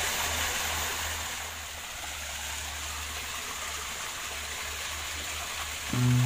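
A small waterfall pouring into a pool, a steady rushing splash. Music comes in just before the end, louder than the water.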